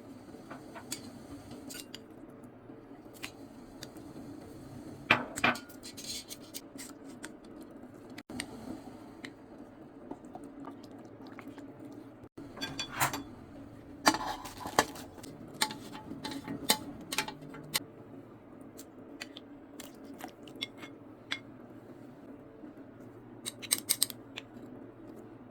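Kitchen utensil sounds while cooking: scattered clicks, clinks and knocks of utensils against a pot or bowl, in short clusters, over a steady low hum.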